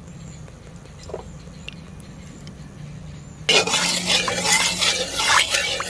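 Mustard oil in a heated karai sizzling and crackling loudly. The sizzle starts suddenly about three and a half seconds in, as a metal spatula spreads the hot oil; before that there is only a faint steady hum.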